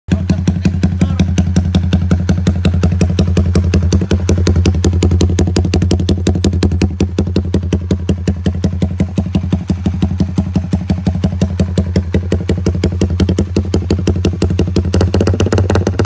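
Suzuki Raider R150 Fi's single-cylinder four-stroke engine idling steadily through an AUN aftermarket exhaust pipe, a quick even train of exhaust pulses with no revving.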